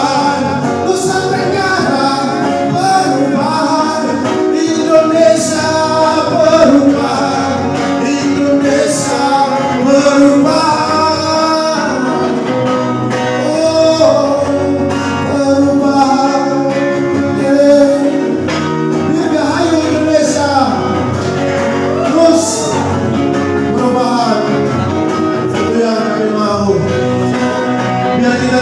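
A man singing a song with instrumental accompaniment.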